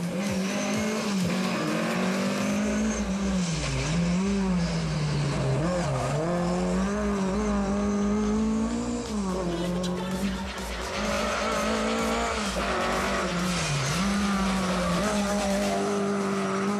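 Lada rally car's four-cylinder engine held at high revs, its pitch dropping briefly and climbing again several times, with tyres squealing.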